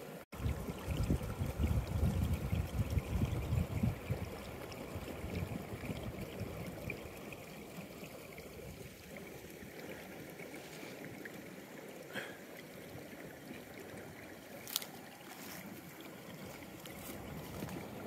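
Wind buffeting the microphone in low rumbling gusts for the first few seconds, over a steady rush of running stream water. A few faint clicks come later.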